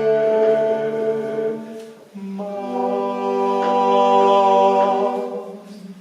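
Voices singing the last word of a slow Spanish song in harmony. They hold one chord, then move about two seconds in to a final held chord that fades out near the end: the closing cadence of the song.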